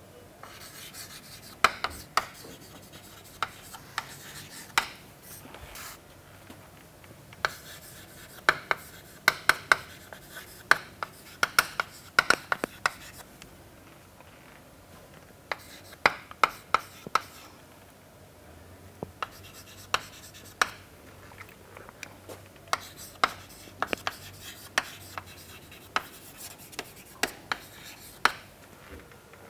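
Chalk writing on a chalkboard: sharp taps and short scratches as letters are formed, coming in clusters with a couple of brief pauses about halfway through.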